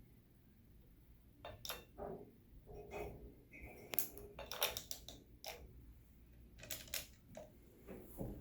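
A series of irregular light clicks and taps, starting about a second and a half in and going on until near the end, the kind made by eye-exam equipment being adjusted or keys being pressed.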